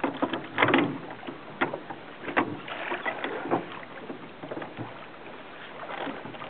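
Rowboat oars dipping and splashing in the water in short, uneven strokes, with a calmer stretch a little past the middle.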